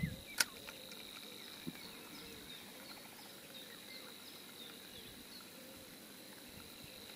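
Quiet lakeside ambience: a steady high-pitched insect drone with faint, repeated small bird chirps, and a single sharp click about half a second in.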